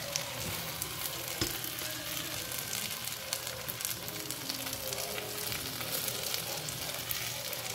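Chopped pork sisig with onions and chili sizzling in a hot nonstick frying pan, with a plastic spatula scraping and turning it; a single sharper knock of the spatula about a second and a half in.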